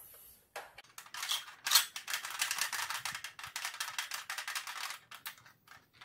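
Plastic clicking and rattling as Nerf Longshot blaster parts are handled and fitted back together, with a sharp snap about two seconds in and a dense run of small clicks after it.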